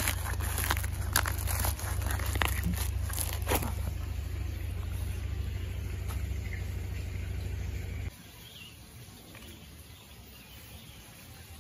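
A marker pen scratching in short strokes on a woven plastic sack, over a low rumble of handling noise on the microphone. The rumble cuts off about eight seconds in, leaving quieter outdoor ambience.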